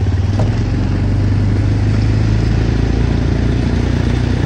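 A small vehicle's engine running steadily at speed, a loud low hum, as it is ridden across the ice.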